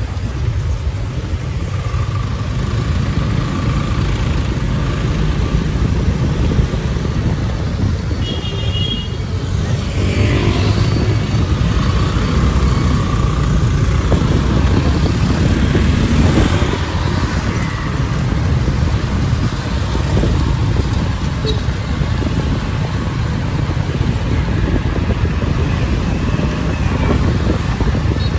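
Street traffic: motor vehicles passing steadily, with a brief high tone a little over eight seconds in and a rising engine sweep around ten seconds.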